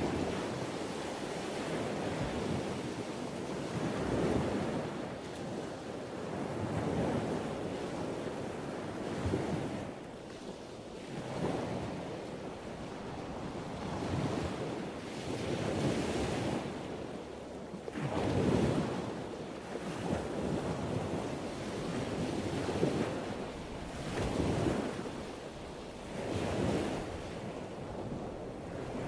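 Ocean waves washing in, the noise of the surf swelling and fading every two to three seconds.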